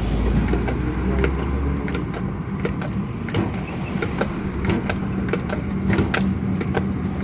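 Horse-drawn tram car rolling along its rails: a steady low rumble from the iron wheels with irregular rattles and knocks from the car, and the horse's hooves clopping as it walks.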